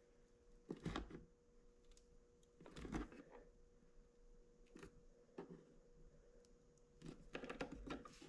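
Faint, scattered creaks and taps of a plastic pry tool levering a Mk8 GTI side-mirror glass against its housing, the glass still stiff and not yet popped free. Single short scrapes come a second or two apart, then a quicker run of them near the end.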